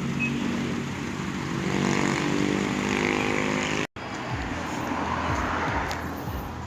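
Toyota LiteAce van's engine running during a brake test drive, holding a fairly steady note. The sound cuts out abruptly just under four seconds in and resumes with a lower engine note that slides down repeatedly.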